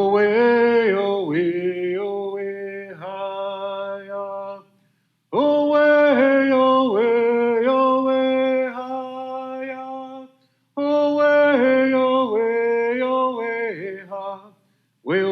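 A man's voice chanting a Native American directional honoring song in wordless vocables: three long phrases, each falling in pitch at its close, with short pauses between them and a fourth phrase starting near the end.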